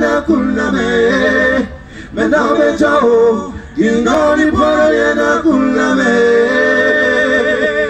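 Man singing into a microphone in phrases broken by two short breaths, ending on a long held note.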